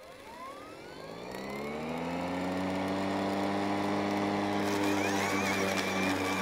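Kobalt 40V Max brushless 20-inch battery mower starting up, its blade motor spinning up with a rising whine that levels off into a steady hum after about two seconds. Around four to five seconds in, a higher whine and a rushing noise join as the mower moves forward cutting grass.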